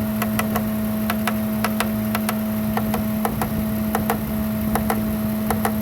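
Ford F-150 engine idling with a steady droning tone, the strange noise that the mechanic traces to an idle air control valve that he thinks is not closing properly. Light, irregular taps on the valve come over it throughout.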